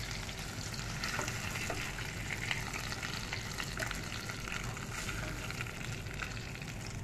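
Food frying in a hot pan: a steady sizzling hiss with scattered small crackles and pops.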